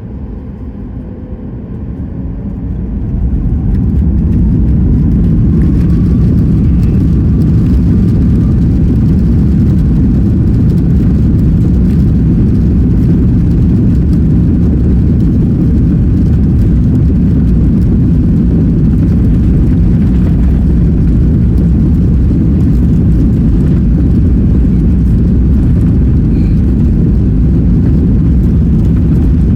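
Boeing 737-8 MAX's CFM LEAP-1B jet engines spooling up to takeoff thrust, the sound building over the first few seconds into a steady, loud, low rumble through the takeoff roll, with a faint whine rising in pitch as the engines spin up.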